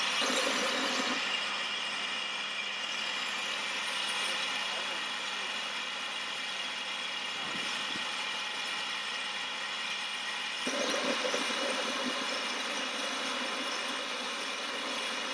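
Steam locomotive standing at the platform, hissing steadily as steam escapes. About two-thirds of the way through, a louder, lower rush joins the hiss.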